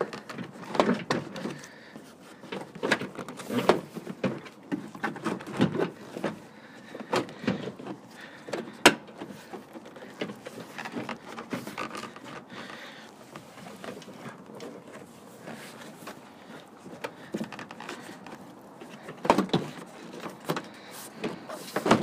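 Plastic interior door trim panel of a 1999 Toyota Sienna being worked onto the door by hand: scattered knocks, clicks and rubbing as it is hooked over the top of the door and pressed into place. There is a sharp click about nine seconds in.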